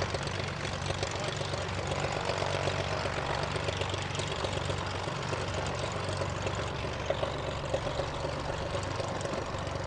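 A Cessna floatplane's single piston engine and propeller running steadily at low power as it taxis slowly on the water.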